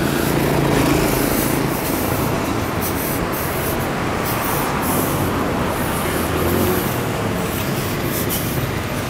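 Busy city street traffic: a steady rumble of car and motorbike engines and tyres on the road.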